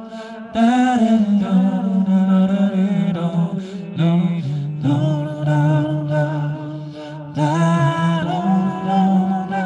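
A man singing wordless, chant-like held notes that waver slightly, over a steady low drone. A new phrase starts about half a second in, and again several more times.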